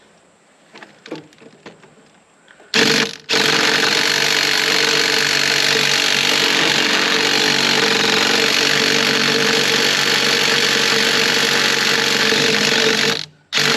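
A few faint clicks, then an impact wrench starts hammering on a tight fan bolt. It checks briefly, then hammers on steadily for about ten seconds without the bolt coming loose, stops, and starts again at the very end.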